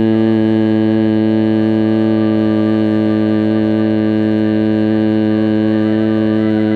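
A man humming steadily on one low pitch through closed lips, like a bee's drone: the long exhale of bhramari (humming-bee) breathing.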